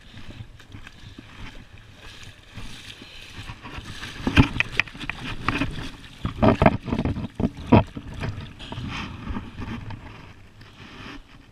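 Water sloshing and splashing at the water's edge as a hand reaches in, with a run of loud, irregular splashes between about four and eight seconds in.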